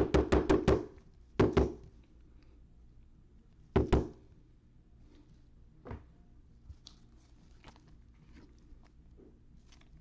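Trading cards being handled on a tabletop: a quick run of about five thumps at the start, two more about a second and a half and four seconds in, then faint light clicks and rustles.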